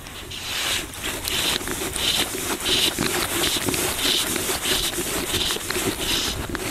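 Fly line being stripped in by hand through the rod rings, a repeated scraping hiss about one and a half pulls a second, as a hooked trout is drawn in.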